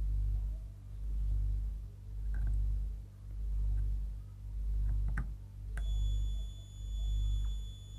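A DT9205 digital multimeter's continuity buzzer starts a steady high beep about two-thirds of the way in as the probes touch a motherboard MOSFET, with a few faint probe-tip clicks before it. This beep on the MOSFET's second side is the test's sign that the MOSFET may be shorted. Under it all, a low hum swells and fades about once a second.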